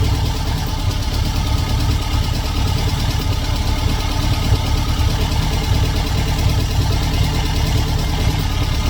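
The 2110cc air-cooled flat-four in a VW Super Beetle, fitted with twin carburetors, idling steadily with a fast, even pulse.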